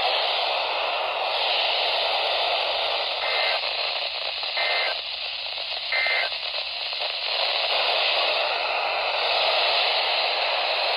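Weather-radio receiver hissing with heavy static. In the middle come three short two-tone data bursts, about a second and a half apart: the SAME/EAS end-of-message tones that close the marine warning broadcast.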